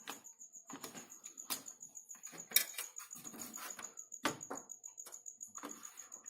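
Irregular sharp clicks and light knocks of cable connectors being worked loose and unplugged inside a desktop PC cabinet, with one louder click a little over two and a half seconds in.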